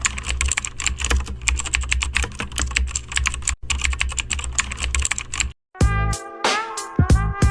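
Rapid, dense clicking like fast typing over a low steady hum, with a short break partway through; pitched music with a beat starts near the end.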